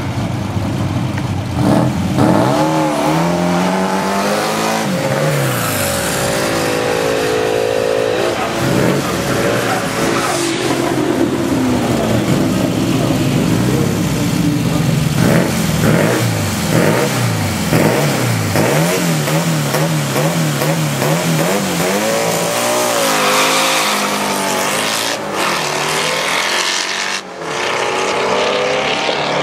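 Drag-racing engines of a twin-turbo Chevrolet Camaro SS and a turbocharged 1961 Volkswagen Beetle revving repeatedly, their pitch swinging up and down. Near the end comes a full-throttle launch, with a long rising note as the cars accelerate down the strip.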